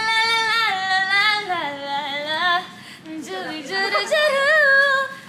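A woman's high voice singing long held notes that slide up and down between pitches, with a short break about three seconds in.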